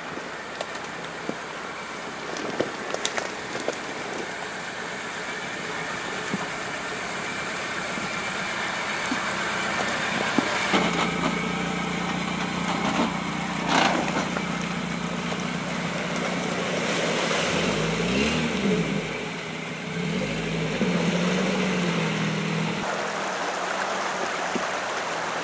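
Karakat (all-terrain vehicle on low-pressure tyres) engine running. About ten seconds in it settles into a louder, even note, then revs up and down a few times.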